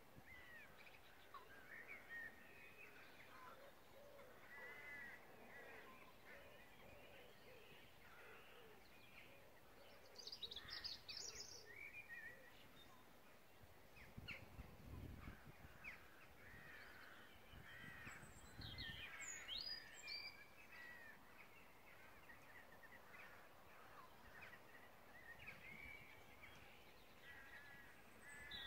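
Faint outdoor bird chorus: several birds calling and singing in short warbling phrases throughout, with brief higher-pitched chirps about ten seconds in, again around nineteen seconds, and near the end. A low rumble comes in around fifteen seconds.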